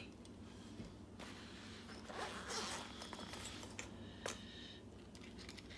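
Faint handling of lock-picking tools: a rustling scrape about two seconds in and a few light clicks.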